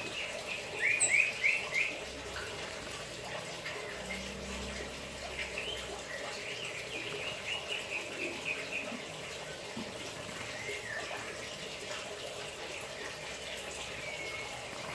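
White-rumped shama singing over a steady hiss of running water while it bathes: a quick run of rising notes about a second in, then another run of repeated notes from about six to nine seconds in.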